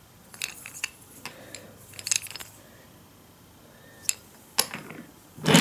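Scattered small clicks and taps of a Thomas Wooden Railway toy engine being handled and turned over in the hand, in a few short clusters, then two single sharp clicks. A louder sound starts right at the end.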